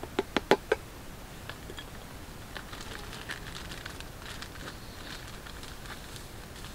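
A wooden spoon tapped four times in quick succession against a metal camp mug, then the light crinkling of a plastic packet as its contents are tipped into the mug.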